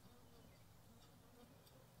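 Near silence, with faint insect buzzing and a few faint ticks.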